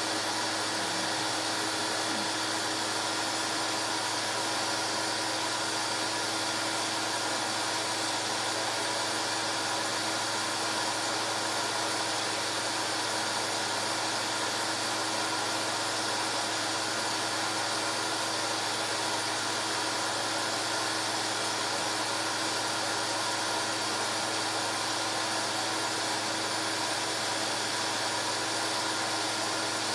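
Home-movie film projector running: a steady motor-and-fan whir with a constant hum, unchanging throughout.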